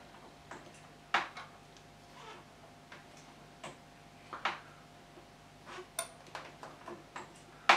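Light, irregular clicks and taps from a hand working the bleed nipple and clear bleed tube on a motorcycle's front brake caliper while the brake is bled; the two sharpest clicks come about a second in and near the end.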